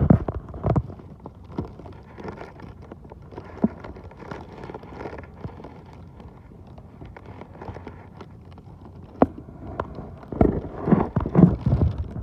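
Plastic bag rustling and crinkling around a bag of freshly caught mackerel, with irregular clicks and crackles. The handling is loudest at the start and again near the end.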